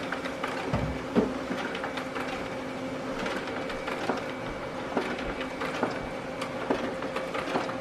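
Brother laser printer running a print job: a steady mechanical hum with small irregular clicks as sheets feed through.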